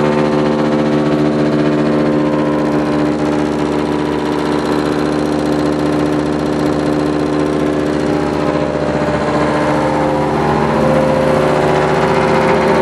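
ABBE Engineering Co. grinder, with a 30-hp direct-drive electric motor turning a five-blade open rotor, running steadily with a loud hum and whine of several steady tones; the tones ease a little midway and come back stronger near the end.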